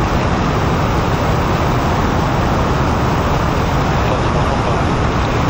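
Five-segment solid rocket motor of NASA's Space Launch System firing in a horizontal static test: loud, steady exhaust noise, heaviest in the low end, with no breaks.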